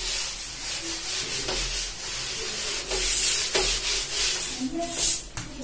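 Whiteboard being wiped clean with an eraser: a series of rubbing strokes across the board's surface.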